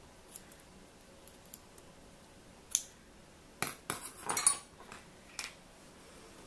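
Light clicks and clinks as scissors and a glass mason jar are handled on a countertop, with a short clattering run of clinks about four seconds in.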